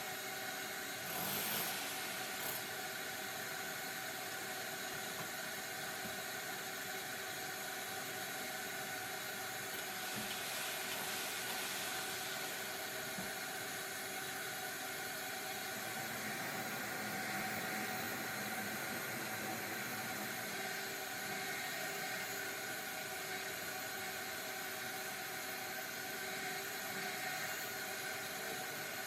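A steady whirring hiss with several faint steady tones, like a small motor or fan running, and a brief sharp high-pitched sound about a second and a half in.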